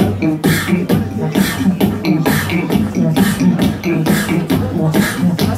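Human beatboxing into a cupped microphone: a steady beat of sharp snare-like hits about two a second over a hummed, pitched bass line.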